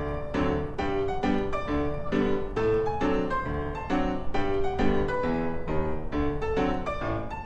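Background piano music, a steady run of notes about three or four a second.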